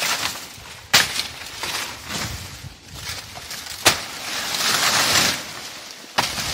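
Long-handled brush hook (foice) chopping at a banana plant: sharp blade strikes about a second in, just before four seconds and near the end, with a rush of dry banana leaves rustling as they are cut and pulled down in between.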